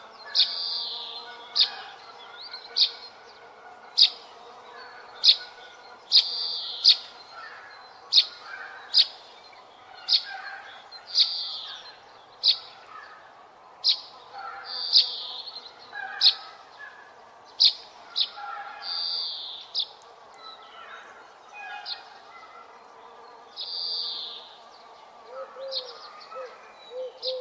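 Birds chirping: a sharp, high chirp repeated about once a second, with short raspy calls in between.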